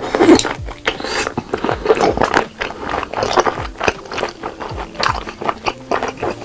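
Close-miked eating: a person biting and chewing food, a dense run of sharp mouth clicks and crunches several times a second.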